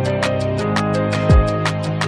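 Background music with a steady beat: sustained chords over quick hi-hat ticks, with one deep kick drum about a second and a half in.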